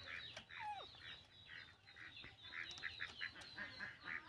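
Background animal calls: a fast, even chirping of about five or six short calls a second over a steady high tone. About half a second in comes one short call that rises and then falls.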